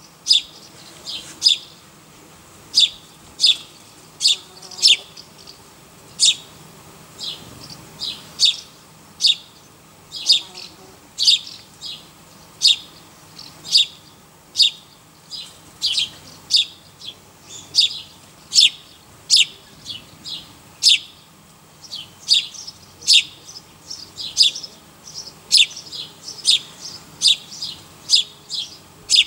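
A bird chirping repeatedly: short, high chirps at an uneven pace of about one or two a second.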